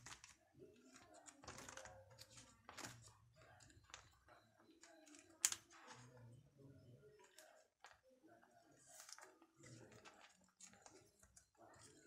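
Photocards and clear plastic binder sleeves being handled: soft rustling with scattered sharp clicks and taps, one louder click about five and a half seconds in.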